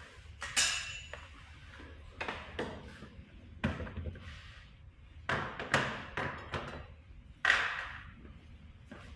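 A series of sharp clinks and knocks, some ringing briefly, from tools and metal hardware being handled while working on a generator.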